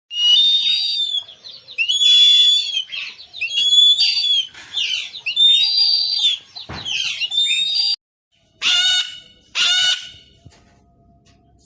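A songbird singing clear whistled, warbling phrases, repeated about every two seconds. After a brief gap near the end come two short, harsh calls about a second apart.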